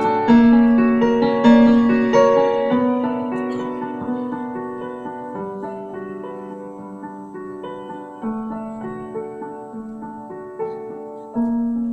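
Grand piano playing a slow melody in single notes and chords, each note ringing and fading, with cello and violin playing along. The music grows gradually softer, then swells again with a louder chord near the end.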